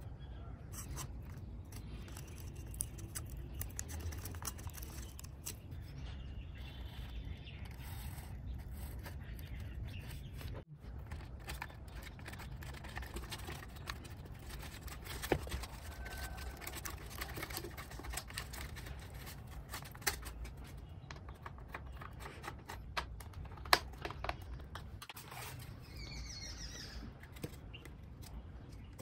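Hands handling a foam model plane: light rubbing and scraping of foam with scattered small clicks and taps, over a low steady hum. A few sharper ticks stand out, and masking tape is being pressed on near the end.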